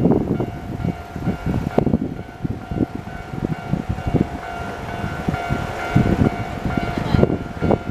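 Japanese level crossing warning bell ringing steadily while an electric commuter train passes, its wheels knocking and rumbling over the rails. The bell tone cuts off about seven seconds in.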